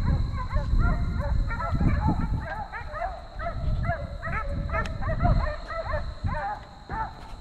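A pack of deer hounds baying in many short, overlapping calls: the dogs giving voice as they run a deer.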